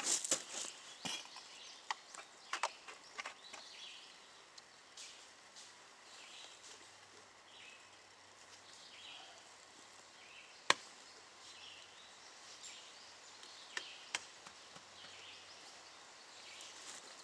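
Firebricks clicking and knocking now and then as they are set by hand, with the sharpest knock about ten seconds in.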